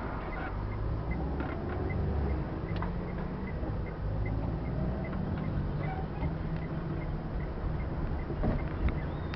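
Steady engine and road noise of a car driving through city traffic, heard from inside the cabin, with a faint even ticking about three times a second and two sharp knocks near the end.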